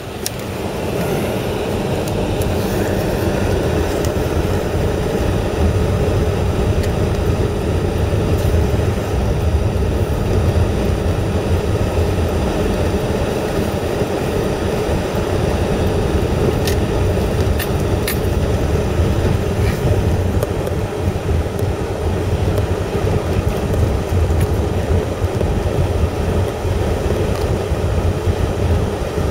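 A car being driven, with a steady rumble of engine and tyre noise. A few faint clicks come about two-thirds of the way in.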